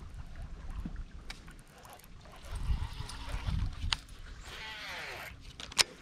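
Water sloshing and gurgling around a small aluminum boat in river current, with wind buffeting the microphone in irregular low rumbling surges. A few sharp clicks are heard, and a short falling squeak comes about four and a half seconds in.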